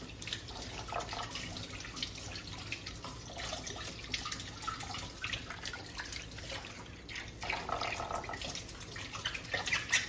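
Two small parrots bathing: a monk parakeet fluttering its wings and splashing in a shallow plate of water, and a green-cheeked conure dunking its head into a mug of water. The result is irregular light splashing and dripping, busier near the end.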